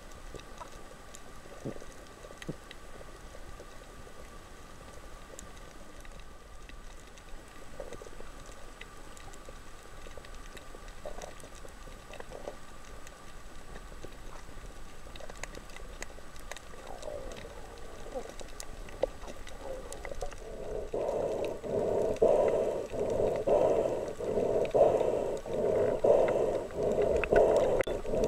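Underwater sound picked up by a camera: a faint hiss with scattered crackling clicks and a faint steady tone. From about twenty seconds in, a louder rhythmic water noise pulses about once or twice a second.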